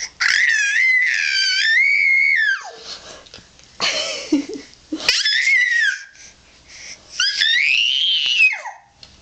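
A 10-month-old baby squealing: a long, high-pitched, wavering squeal, then a short breathy shriek, another squeal, and a last one near the end that rises and falls.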